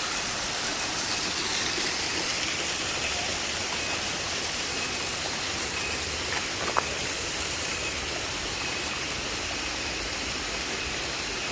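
Waterfall's falling water: a steady, even rush. A single brief click sounds about seven seconds in.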